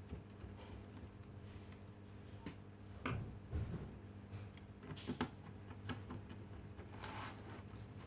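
Scattered light clicks and taps from handling a laptop and its small parts, with a brief rustle near the end, over a steady low hum.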